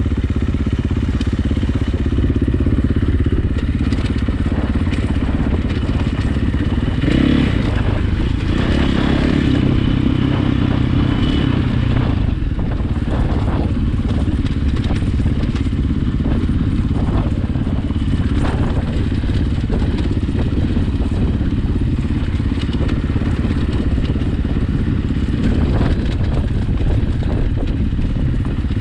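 KTM dirt bike engine running continuously while riding off-road, its pitch shifting with throttle about seven seconds in and again near twelve seconds, with scattered knocks from the bike over rough ground.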